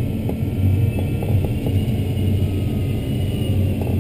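Steady rush and rumble of airflow around an ASK-21 glider, heard inside the closed cockpit, with a faint thin whistle above it.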